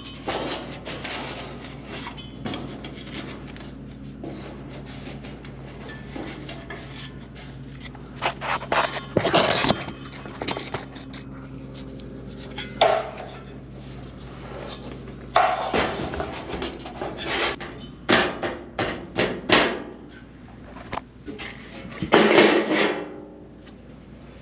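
Irregular knocks, scrapes and rubbing on a loosely secured sheet-metal chassis heat shield under a motorhome floor as cork pads are pushed into the gap between it and the cross braces, with several louder clattering bursts.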